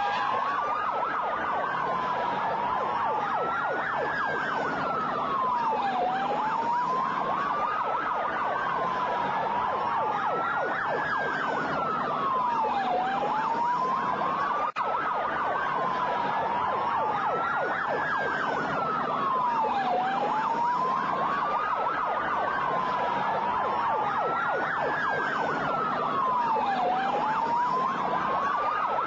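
Emergency vehicle sirens wailing, two overlapping, each rising and falling slowly in a cycle of about seven seconds, over a steady background noise.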